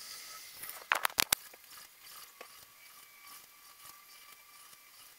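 Elegoo Centauri Carbon CoreXY 3D printer running at the start of a print: faint hiss with thin, steady high whining tones from its motors. Four sharp clicks come in quick succession about a second in.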